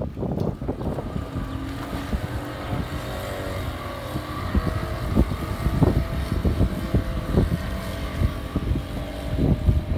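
Outboard motors on a passenger speedboat running at speed: a steady engine drone whose pitch shifts a little. Wind buffets the microphone over it.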